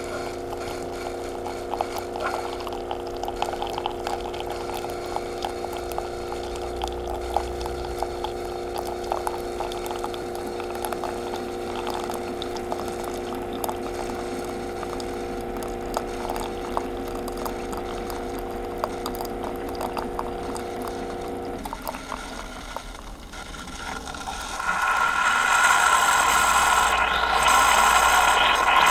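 Coffee maker running: a steady hum with small crackles and gurgles, which stops about three-quarters of the way in. After a brief lull, a louder hissing, sputtering noise starts near the end.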